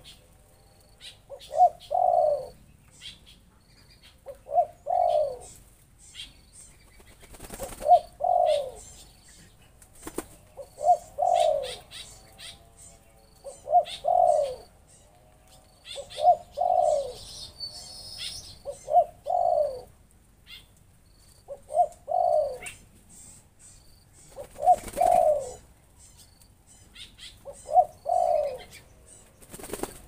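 A dove cooing over and over: a short note then a longer, falling coo, about every three seconds. Faint high chirps run underneath, and there are a few brief bursts of wing-flapping, one near the end from a black-winged stilt flapping its wings in the pool.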